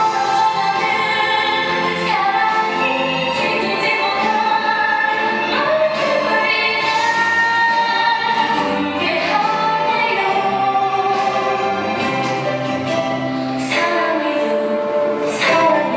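A recorded song played over loudspeakers: singing over instrumental backing.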